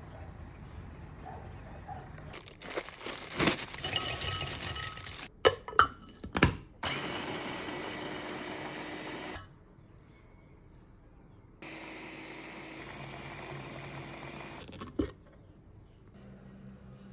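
A kitchen blender's motor runs in two steady bursts of about three seconds each, cutting off sharply each time, as it grinds peanuts for peanut butter. Before the first burst come a few seconds of rattling and several sharp clicks.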